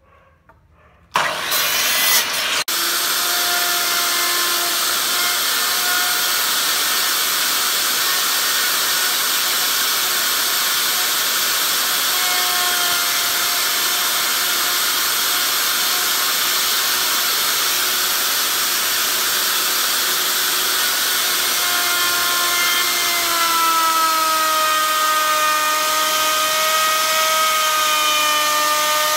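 A power tool starts abruptly about a second in. Then a Dongcheng electric router runs steadily at full speed, its bit cutting a slot along a wooden strip. Its whine drops slightly in pitch near the end as the bit works into the wood.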